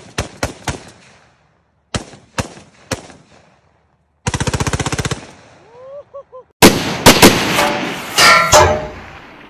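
Rifle gunfire: a quick string of single shots, three more spaced shots, then a fast continuous burst about four seconds in. About six and a half seconds in, a loud crashing sound effect starts, the loudest thing here.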